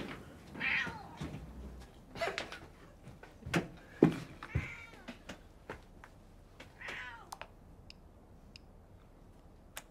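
A cat meowing several times in drawn-out, bending calls, with a couple of knocks in the middle as a plate is set down on a table.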